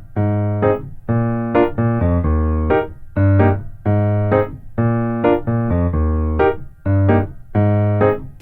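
Background music played on a keyboard instrument: a short chord pattern repeating in a steady rhythm.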